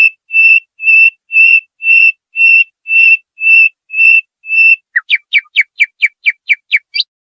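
Recorded songbird song of the 'haddad' (blacksmith) type, used for tutoring young birds. It has clear whistled notes repeated about twice a second. About five seconds in comes a quicker run of about ten falling notes, the last one rising.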